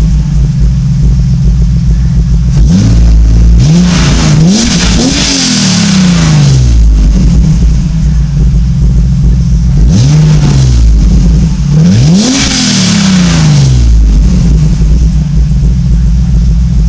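BMW S52 3.2-litre straight-six in an E30 idling, then revved in several quick blips that rise and fall back to idle. The blips come about three to five seconds in and again about ten to thirteen seconds in. The exhaust is Raceland headers into a 3-inch Magnaflow straight-through mid-muffler and a Varex valved rear muffler with its valve closed.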